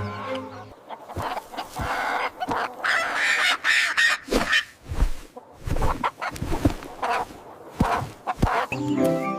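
A flock of hens clucking in short, irregular calls, with several dull thumps in the second half.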